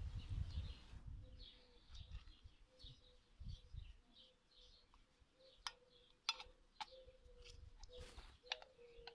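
Faint birds chirping in the background, with a few sharp plastic clicks in the second half as a diesel fuel filter element and its bowl are handled, and a short rustle about eight seconds in.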